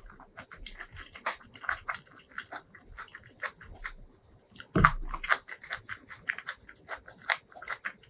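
Close-miked eating sounds: a steady stream of wet chewing and lip-smacking clicks as a mouthful of rice and fried crispy noodles is chewed. One louder thump comes about five seconds in.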